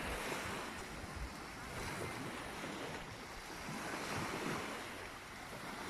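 Sea surf washing steadily on the beach, with wind rumbling on the microphone.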